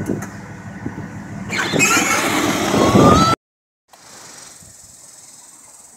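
A child's ride-on Jeep driving over the ground, its noise swelling with a rising whine as it speeds up. The sound breaks off abruptly about three and a half seconds in, leaving only a faint steady hiss.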